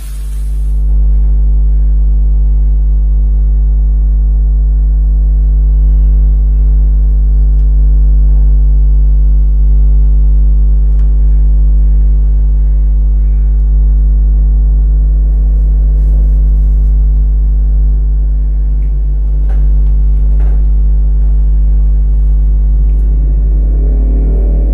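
A loud, steady low hum with a buzzy edge, with a few faint clicks over it and a soft rustle near the end.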